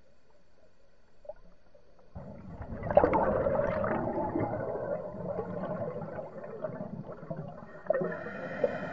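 Scuba diver's breathing heard underwater: bubbling and gurgling that starts suddenly about two seconds in and carries on, with a steadier pitched tone joining near the end.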